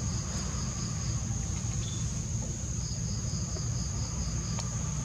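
Insects chirping outdoors: a steady high-pitched drone with a pulsing chirp of about five pulses a second that comes in two runs, the second starting near the middle, over a low steady rumble.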